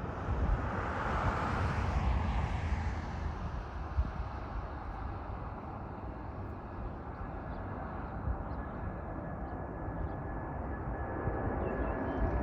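Airbus A330-300 jet engines rumbling steadily during takeoff, with a hiss that sweeps down in pitch over the first few seconds. A steady engine whine comes in near the end as the sound grows louder.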